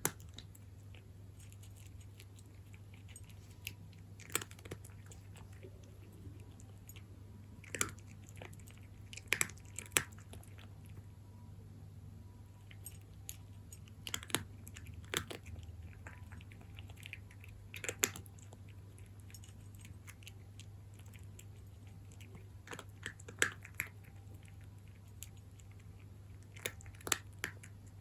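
A cat crunching dry kibble, with irregular sharp crunches coming every second or few and short pauses between bites, over a faint steady low hum.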